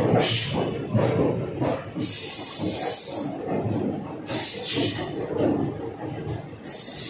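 Indian Railways passenger coaches running past close alongside: a steady wheel-and-rail rumble with a clattering rhythm, and short high-pitched squeals about every two seconds.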